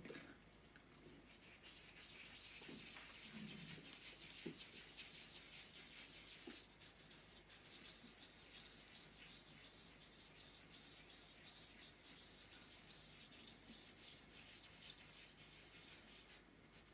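Fingers rubbing a homemade sugar scrub over wet facial skin: a faint, steady scratchy rubbing.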